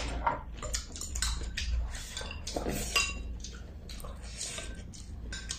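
Spoon and chopsticks clinking and scraping against ceramic bowls as two people eat: a string of light taps and clinks, one sharper near three seconds in.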